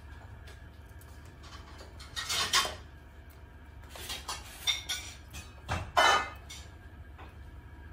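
Hinged metal lid and plastic handle of an electric flatbread maker clattering as the lid is lifted open and pressed shut again. There are a few sharp knocks: one a couple of seconds in, a cluster of lighter clicks in the middle, and the loudest near the end as the lid comes down.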